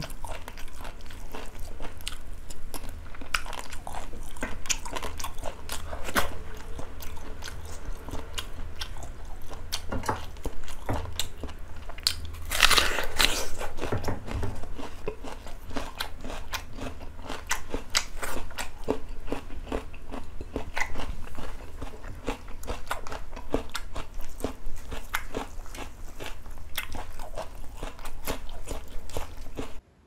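A person chewing and biting food with wet mouth clicks and crunches, over and over, with one louder burst about halfway through.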